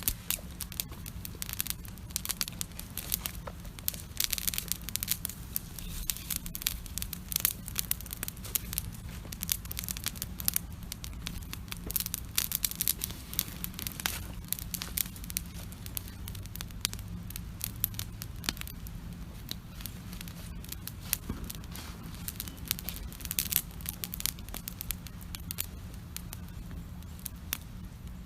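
Campfire crackling and popping steadily, a dense run of sharp snaps that is thickest in the first half, over a steady low rumble.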